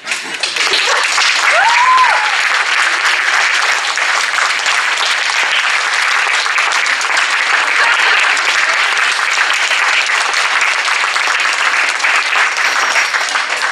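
Audience applauding: dense clapping that starts suddenly and keeps on, with one brief rising whoop about two seconds in.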